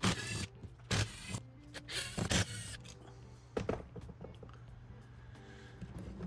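Cordless drill/driver run in three short bursts, backing screws out of a motorcycle carburetor rack's housing, followed by a single clack of metal parts a little over halfway through.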